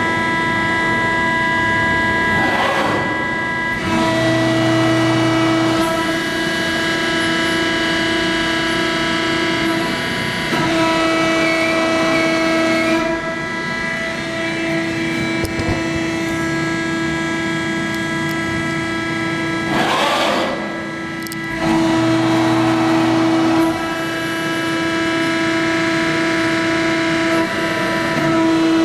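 Background music: sustained synthesizer chords that change every few seconds, with a whooshing swell about three seconds in and again about twenty seconds in.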